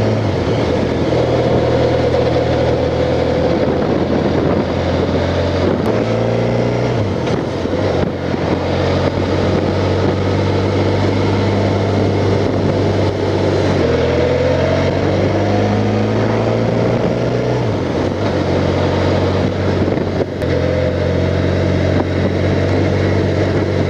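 Honda Crosstourer's V4 engine running under way at a steady cruise over a constant rushing hiss. Its note steps up and down in pitch about seven seconds in, again around fourteen seconds, and near eighteen seconds.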